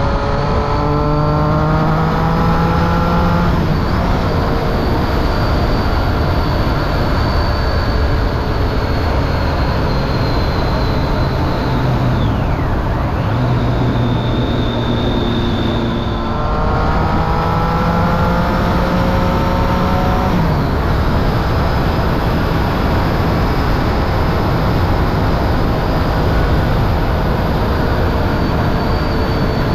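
Triumph Street Triple 675 inline three-cylinder engine through a Remus Hypercone exhaust with dB killer, pulling hard twice, its pitch climbing: once near the start and again a little past halfway. Steady wind and road noise underneath.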